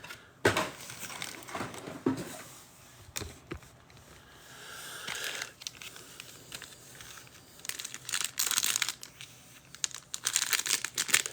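Plastic wrapping of trading card boxes and packs crinkling and tearing as they are opened by hand, with scattered light handling clicks; the crinkling grows busier near the end.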